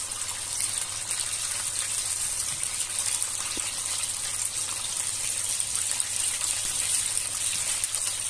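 Breaded chicken drumsticks deep-frying in hot oil in a pot: a steady sizzling hiss thick with small crackles, the pieces golden and ready to come out.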